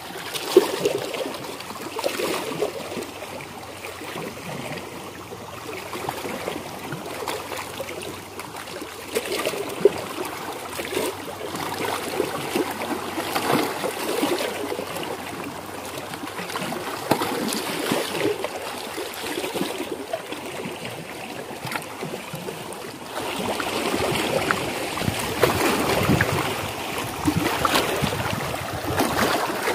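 Small lake waves lapping and splashing against shoreline rocks, an irregular wash of water that grows louder in the last few seconds.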